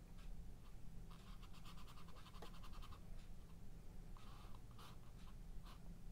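Brush working dark oil paint onto a textured stretched canvas: faint quick scratchy strokes, in a rapid run from about a second in until about three seconds, and again shortly after four seconds, over a low steady hum.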